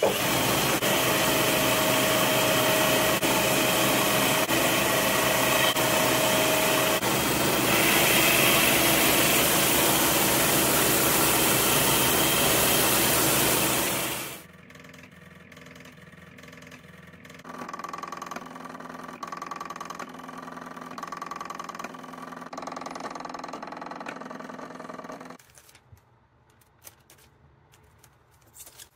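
Belt grinder running with a steel axe head held against the belt: a loud, steady grinding hiss with a steady whine, as the head is tidied and the edge sharpened. It stops about fourteen seconds in, and a much quieter sound of shifting tones follows.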